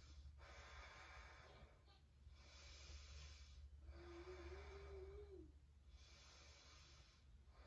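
Faint slow breathing, four breaths of about a second each, over a steady low hum. A short faint tone comes about four seconds in.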